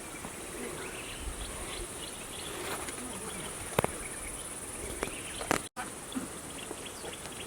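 Insects chirring in a steady high-pitched chorus, with one sharp click about four seconds in; the sound cuts out for an instant near the end.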